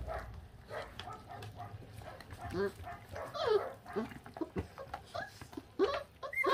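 26-day-old puppies chewing and tearing raw meat on the bone, with many short whines and squeals. Right at the end one pup gives a louder, higher cry, as if startled.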